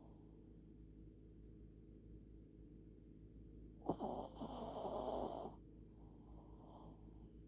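Heavy breathing: one loud, rough breath that starts sharply about four seconds in and lasts nearly two seconds, then a fainter breath near the end.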